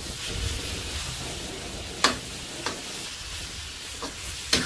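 Stir-fry of noodles and vegetables in sauce sizzling in a wok over a gas wok burner, stirred with a metal spatula that scrapes and knocks against the wok several times, loudest about two seconds in and near the end.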